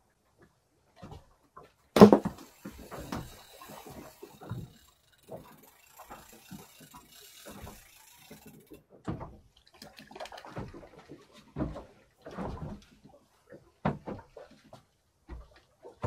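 Irregular knocks, clunks and rattles of fishing tackle being handled on a small boat. The loudest is a sharp knock about two seconds in, followed by a steady hiss lasting several seconds.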